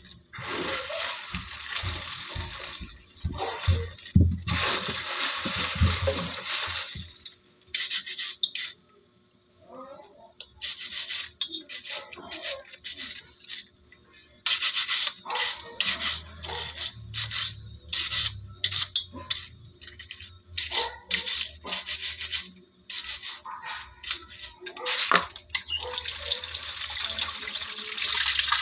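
A stiff scrub brush scrubbing the shell of a raw crab in quick, irregular strokes, in bursts with short pauses. Near the end a kitchen tap runs steadily into the sink.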